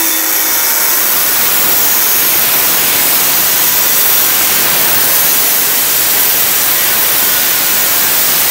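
Long-handled, variable-speed angle grinder with a cutting disc, cutting smoothly. The noise is steady and loud and does not change.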